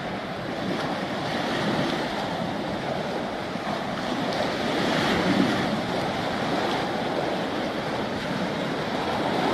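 Wind on the microphone and small waves washing against the shore: a steady rushing noise that swells and eases.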